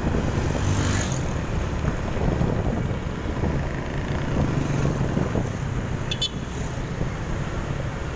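Steady low rumble of a moving vehicle's engine and road noise, with city traffic passing. A short run of high ticks comes about six seconds in.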